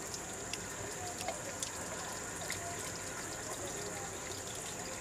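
Steady outdoor forest ambience: an even hiss with a constant high-pitched whine over it, and a few faint short chirps and ticks.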